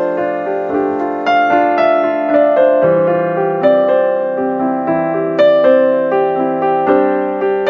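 Background piano music: a melody of single struck notes, each ringing and fading before the next.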